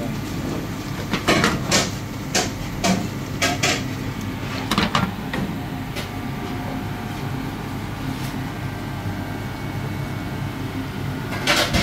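Wooden spatula knocking against a frying pan while a thick saucy chicken stir-fry is stirred: about eight short clacks in the first five seconds and one more near the end, over a steady hum.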